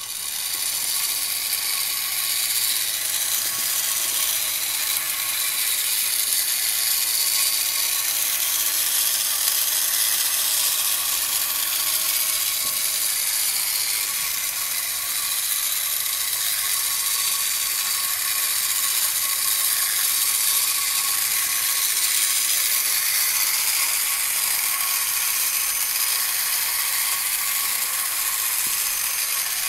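Battery-operated 1950s Masudaya Space Commando tin toy robot walking under remote control: its small electric motor and gear train run with a steady mechanical clatter and a faint wavering hum beneath. The sound starts suddenly as the remote's button is pressed.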